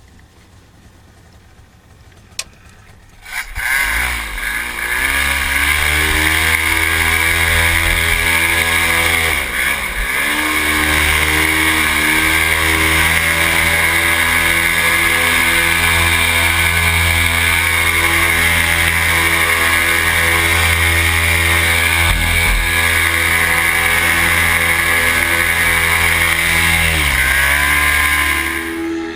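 Paramotor's two-stroke engine throttled up from near quiet to a steady high-power drone about three seconds in, with a brief dip in revs around ten seconds in, then throttled back to a low idle near the end.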